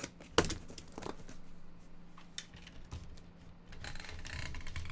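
Yellow utility knife cutting the tape seams on a cardboard box, with scraping and scattered clicks as the box is handled. A sharp knock about half a second in is the loudest sound, and a longer scraping cut comes near the end.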